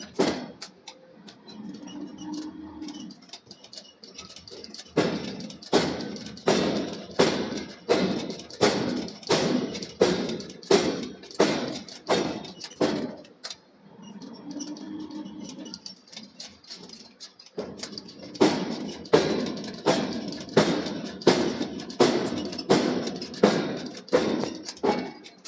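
Forging hammer striking hot steel in runs of heavy, even blows about two a second, with pauses between the runs.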